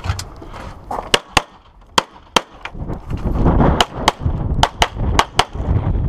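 Handgun shots fired rapidly during a practical-shooting stage, about a dozen sharp cracks. Most come in quick pairs (double taps), a fraction of a second apart, with short pauses between the pairs.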